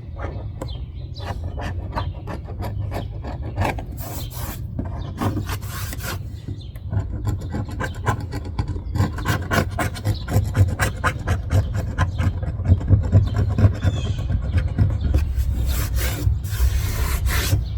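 Hand scraper dry-scraping old, gooey window adhesive off a car's quarter-window frame, in many quick repeated strokes that grow louder and denser in the second half, over a steady low hum.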